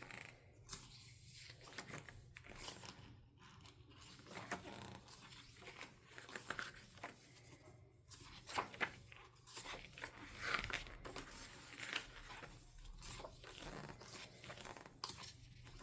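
Photobook pages being turned and handled: soft, irregular paper rustles and slides, a few louder ones a little past the middle.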